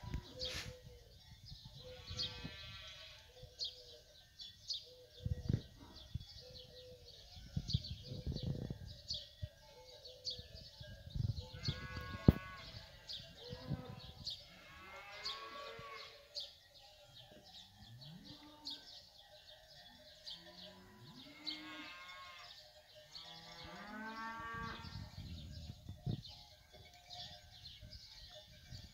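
Cattle calling in a pen: a string of higher-pitched calls, each rising and falling in pitch, a few seconds apart, and some lower calls near the middle, over low rumbling noise. A single sharp knock about twelve seconds in.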